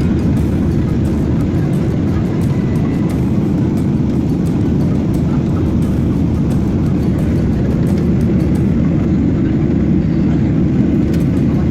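Steady low rumble of a vehicle in motion, heard from inside, at an even level with no changes.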